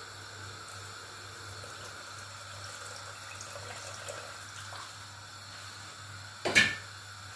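Coconut water trickling as it is poured into a pot of rice, a faint steady sound over a low hum. About six and a half seconds in there is one sharp clank.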